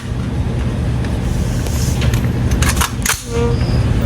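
Gunshots at a shooting range: three or four sharp reports in quick succession a little before three seconds in, over a steady low rumble.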